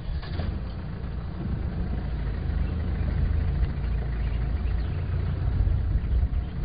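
Land Rover safari vehicle's engine running steadily as it drives off-road through the bush, a low, even hum.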